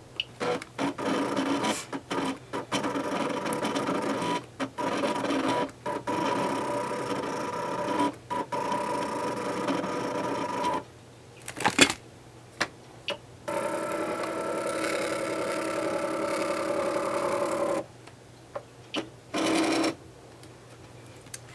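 Cricut electronic die-cutting machine cutting a shape from paper: its motors whir with a steady pitched whine in long stretches, first for about ten seconds, then again for about four seconds after a short pause, with brief stops and clicks as the blade carriage and mat change direction.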